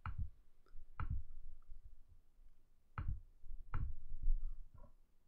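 Four sharp, separate computer mouse clicks, irregularly spaced.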